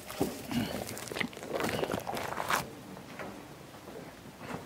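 A few footsteps and light knocks on a tiled floor, mostly in the first half, then quieter room sound.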